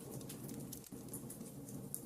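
Wood campfire burning: a steady low rumble of flame with irregular small crackles and pops from the logs.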